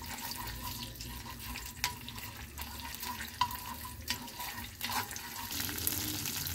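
Tomato paste sizzling in hot oil in a nonstick wok as a metal spoon stirs it, with several light clicks of the spoon against the pan.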